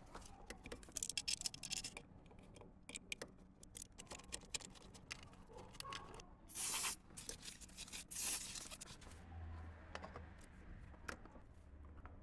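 Small clicks, taps and scrapes of parts being handled and worked on, with two short hissing bursts a little past the middle.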